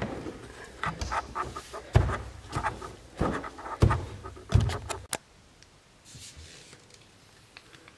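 Footsteps on a hardwood floor as someone walks while carrying the camera, about five heavy low steps with rustling and handling clicks. It stops with a click about five seconds in and goes quiet.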